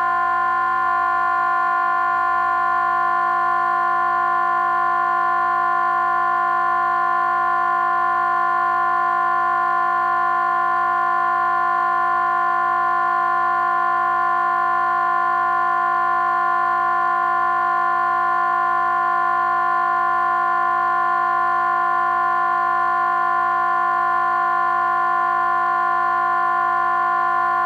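Crowd sound run through a vocoder pitched to C, heard as a steady electronic drone of several held tones that does not change.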